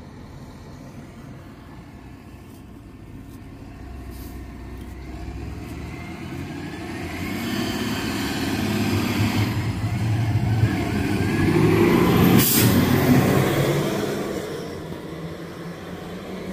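A road vehicle, likely a truck, passes by. It grows louder over several seconds, is loudest about twelve seconds in with a short sharp noise at its peak, and then fades.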